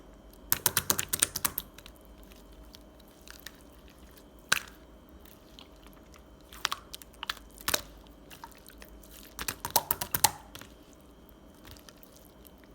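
Clusters of short, sharp crunching clicks: a quick run about half a second in, a single click around four and a half seconds, a few more around seven seconds, and another quick run near ten seconds.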